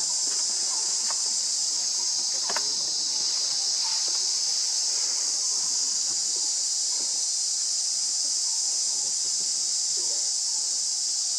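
Steady, high-pitched drone of an insect chorus, with a few faint short clicks beneath it.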